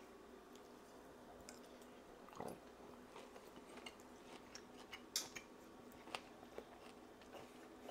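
Faint chewing of a bite of venison steak, with small scattered mouth clicks and a sharper click about five seconds in. A soft thump comes about two and a half seconds in.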